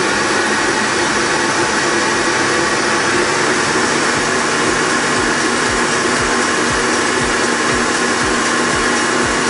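Electric stand mixer running steadily with a motor whine, its wire whisk beating thin chocolate cake batter in a stainless steel bowl.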